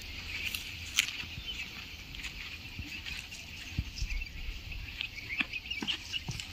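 Footsteps on a dirt path, irregular light ticks and scuffs, over outdoor ambience with a faint high chirping in the background.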